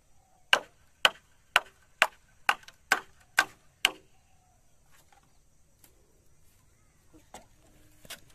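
Eight sharp chopping strikes into bamboo, about two a second, then stopping after about four seconds; a blade cutting or trimming bamboo poles for a fence.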